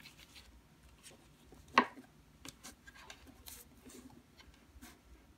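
Faint rustling and small taps of tracing paper and a small stretched canvas being handled and set down on a table, with one sharp knock about two seconds in.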